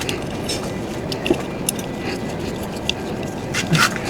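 Scattered light metallic clicks and clinks, as of small tools and metal parts being handled, over a steady background hiss.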